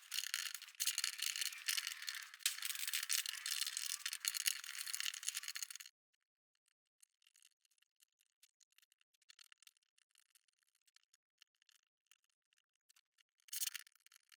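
Small plastic LEGO plant pieces clattering and rattling as they are pulled off and dropped into a bin: a dense run of clicks that cuts off suddenly about six seconds in. After it come sparse faint clicks and a brief burst of rattling near the end.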